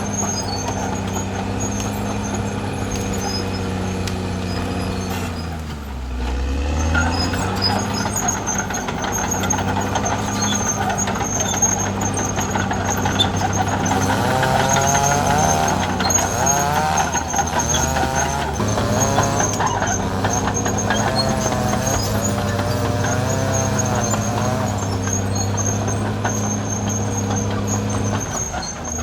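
Caterpillar D6R XL bulldozer's diesel engine running steadily. About six seconds in, the engine speed dips and recovers. Through the middle, a wavering squeal rides over the engine.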